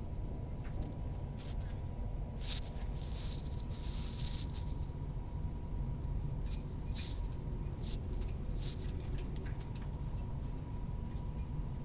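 Steady low rumble of a Queensland Electric Tilt Train running at speed, heard inside the passenger carriage, with a faint steady hum. Scattered light ticks and rustles come and go over it, clustered in two stretches.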